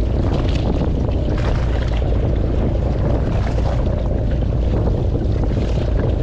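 Steady wind rumbling on the microphone out on the open sea, with water washing against a small boat's hull.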